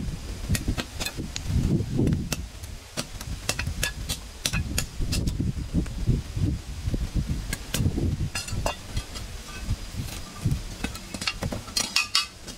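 Irregular knocks, taps and clatter at uneven intervals, like hand work on debris or wood, with a faint steady low hum underneath.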